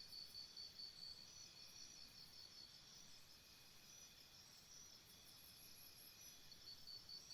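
Faint cricket chirping, a high pulsing about four times a second, over near-silent room tone; the chirping fades out about a second in and returns near the end.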